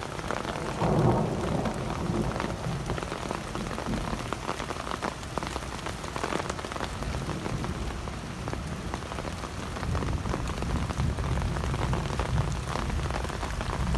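Steady rain falling, a continuous hiss with many separate drop hits, and a brief louder low rumble about a second in.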